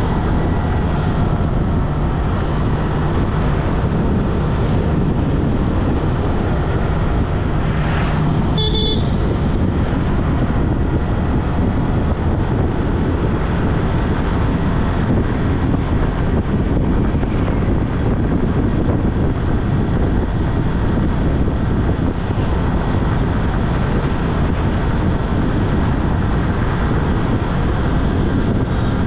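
Steady road noise of a car driving on a highway: an even, low rumble of tyres and engine that does not change. A brief higher-pitched tone sounds about nine seconds in.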